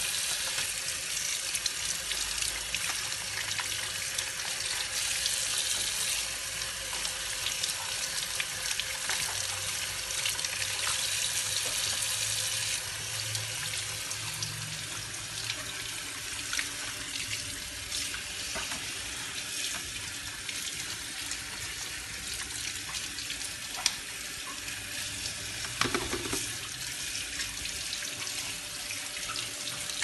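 Kitchen tap running steadily into a sink as pomegranates are washed under the stream, with a few light knocks as the fruit is handled.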